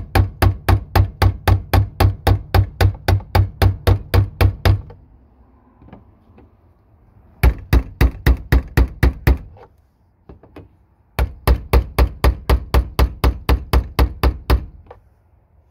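Hammer rapidly tapping a chisel against the fuel pump module's retaining ring to drive it round and tighten it down, about five strikes a second. The strikes come in three runs with pauses between, and a couple of single taps before the last run.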